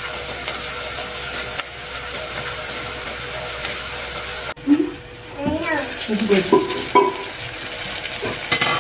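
Sliced onions and garlic frying in hot oil in a pot, a steady sizzle that cuts off abruptly about halfway. A quieter stretch follows, with a voice heard briefly over it.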